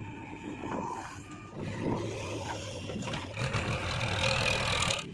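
Diesel engine of heavy earth-moving machinery running steadily, with a louder spell of mechanical noise building about three seconds in that cuts off abruptly near the end.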